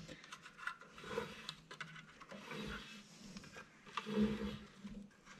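Faint rubbing and light ticks from a CVT drive belt and CVTech clutch sheaves being turned by hand, the belt working its way down into the secondary clutch until it tightens up. There are a couple of slightly louder bumps, about a second in and about four seconds in.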